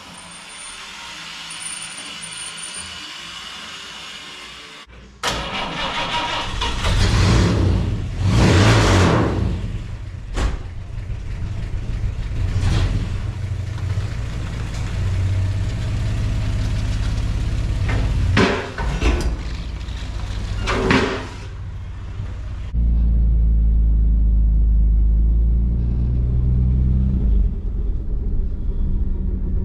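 A 1954 Chevrolet's engine running and revving several times, followed about three-quarters of the way through by a deep, steady rumble heard from inside the car's cabin as it drives. The first five seconds hold only quieter shop noise before the sound cuts in suddenly.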